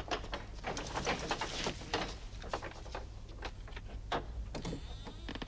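Quiet, irregular scuffs, taps and clicks of several people moving stealthily on foot, over a faint low steady hum.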